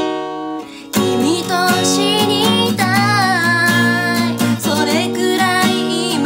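Steel-string acoustic guitar being strummed, with a voice singing a song over it. The guitar drops briefly to a quiet ring just before a second in, then strumming and singing pick up again.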